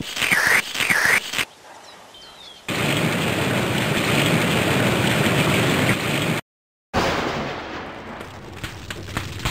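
Cartoon sound effects: two quick swooping squeaks as a bone is licked, then a steady downpour of rain, cutting out suddenly about six and a half seconds in. A sudden loud crash follows, a lightning strike setting a tree alight, fading over the next couple of seconds with scattered crackles.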